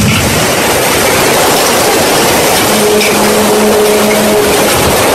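Hurricane Irma's eyewall wind buffeting the camera microphone: a loud, steady rush of wind and rain. About three seconds in, a low hum with a higher overtone sounds for a second or two.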